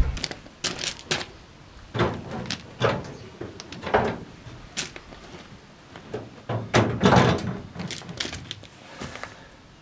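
Irregular knocks and clunks of a car seat being shifted about on a Land Rover's metal seat box, with a closely spaced run of them about seven seconds in.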